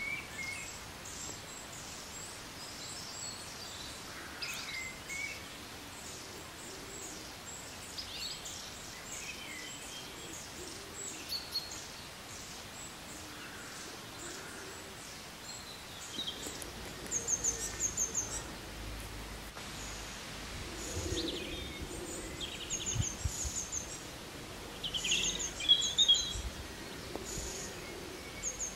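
Birdsong: several wild birds chirping and calling over a steady outdoor background hiss, with louder runs of quick high chirps partway through and again near the end.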